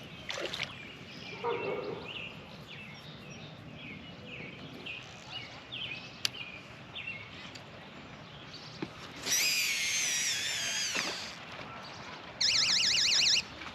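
Birds calling outdoors: short high chirps repeated every half second or so, then a louder warbling song past the middle, and a fast, even trill near the end.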